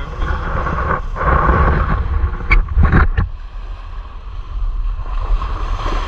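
Small waves washing up on a pebble beach, with wind rumbling on the microphone. A few short, sharp knocks or scrapes come about two and a half to three seconds in.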